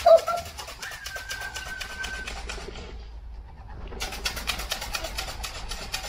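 A racing-pigeon keeper calling his birds down to the loft: a long steady whistled note about a second in, over a fast, even rattling that pauses briefly in the middle and then starts again. A sharp sound at the very start is the loudest moment.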